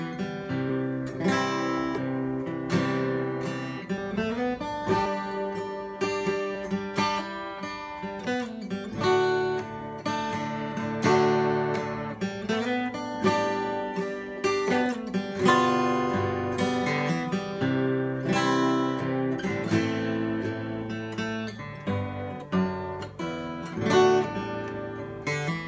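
Solo steel-string acoustic guitar played fingerstyle: a picked melody over bass notes, with a few notes slid into, played continuously.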